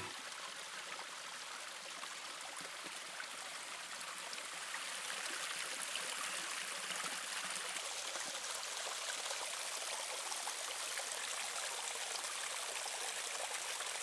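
A small stream flowing steadily, an even rushing sound that grows a little louder after the first few seconds.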